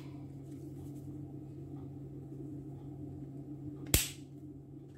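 A steady low hum with a single sharp click about four seconds in.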